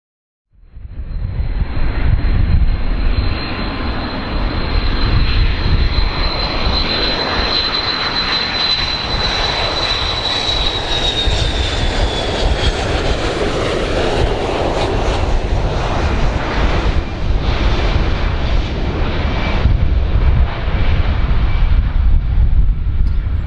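Boeing 727 trijet's engines on landing approach: a loud, steady jet rush over low rumble, with a high whine that glides down in pitch about eleven seconds in. The sound starts abruptly about half a second in.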